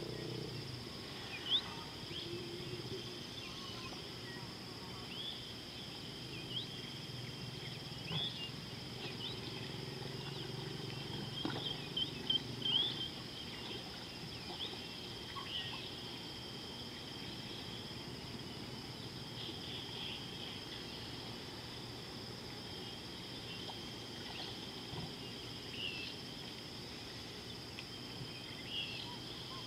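Bush ambience: a steady high-pitched insect trill runs throughout, with many short bird chirps over it, a few louder ones clustered about twelve seconds in.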